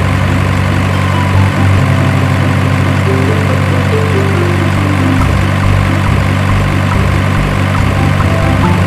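Background music with a steady low bass drone and a melody stepping down in pitch.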